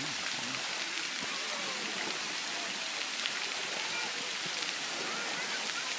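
A tall fountain jet spraying, its water falling onto a shallow wading pool with a steady, even hiss like rain.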